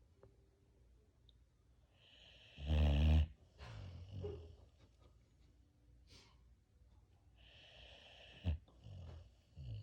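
Boxer dog snoring in its sleep: a loud, rattling snore about two and a half seconds in, followed by softer breaths. A second snore comes near eight seconds, ending in a short sharp snort.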